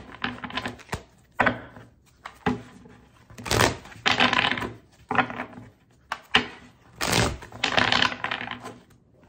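A tarot deck being shuffled by hand: irregular runs of quick card clicks and flutters, in several short bursts with brief pauses between them.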